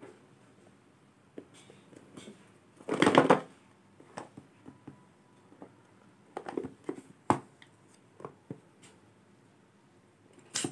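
Hands handling a cardboard smartphone box, fingers rubbing and scraping at a lid that is stuck tight. There are irregular rustles and clicks, with a louder scrape about three seconds in and sharp taps later on.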